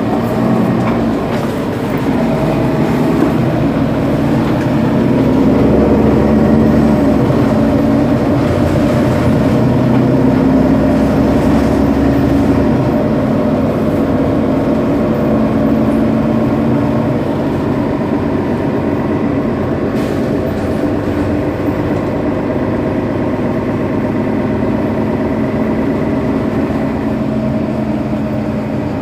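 Mercedes-Benz Citaro bus's rear-mounted OM 457 hLA diesel engine, a 12-litre straight-six, idling with the bus standing still: a loud, steady drone that swells a little about five seconds in and then eases back slowly.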